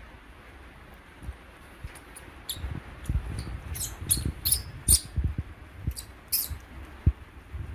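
Baby monkey giving a run of short, high-pitched squeaks, about eight in four seconds, starting a few seconds in. Soft thumps and rustling of movement on the bed sit underneath.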